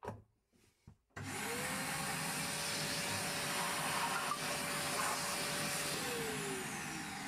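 A 1000-watt shop vacuum plugged into a newly wired wall socket and switched on, after a few clicks as the plug goes in. Its motor spins up a little over a second in with a rising whine, runs steadily, then winds down with a falling whine near the end. It runs, which shows the socket is live and working.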